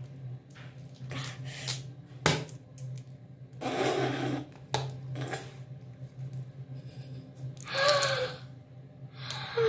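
Pull-ring lid of a small pink can being pried open, with one sharp click a little over two seconds in, then the crinkle of a clear plastic cover being peeled off the cup inside.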